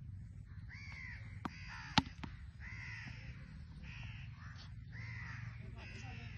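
Crows cawing, about five calls roughly a second apart. One sharp crack about two seconds in, the loudest sound, is a cricket bat striking the ball, with a smaller knock just before it.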